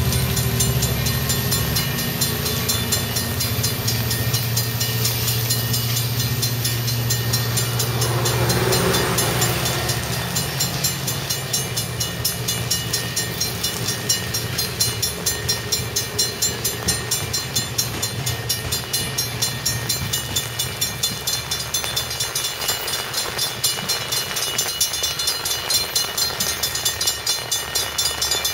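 Amtrak Pacific Surfliner passenger train of bilevel cars rolling past and pulling away. A steady low rumble eases off about ten seconds in, then a quick, even pulsing carries on as the train recedes.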